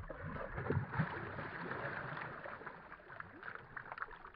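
Water splashing and churning beside a boat as a big bass is released by hand and kicks away, strongest in the first couple of seconds and easing off toward the end.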